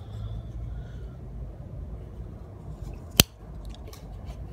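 A single sharp click from a Spyderco Native 5 Salt lockback folding knife about three seconds in, as the blade is swung open and the lock engages, with faint handling sounds around it.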